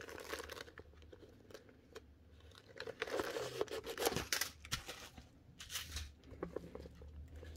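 Packing material crinkling and tearing as a well-packed handbag is unwrapped. The rustling is loudest from about three to four and a half seconds in, with shorter crackles near the six-second mark.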